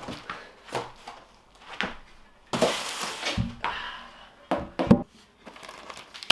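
Unboxing and putting together a bike repair stand: scattered knocks and clunks of the parts being handled, with a stretch of rustling a little before the middle, a low thud about three and a half seconds in and two sharp knocks near five seconds.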